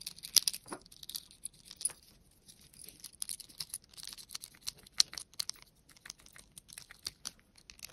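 Screwdriver tightening the screws of a cable strain-relief clamp on a lamp fitting: a string of small, irregular clicks and scrapes with short pauses between them.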